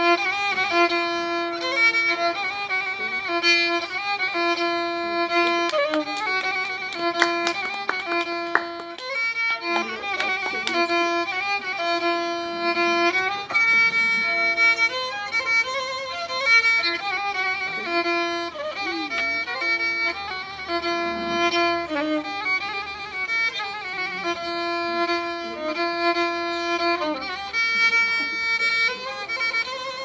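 Solo bowed violin improvising a Turkish folk melody, with long held notes that waver and slide between pitches.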